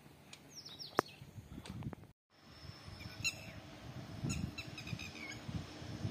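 Small birds chirping in short calls and quick falling whistles, over irregular low gusts of wind buffeting the microphone. The sound drops out completely for a moment about two seconds in.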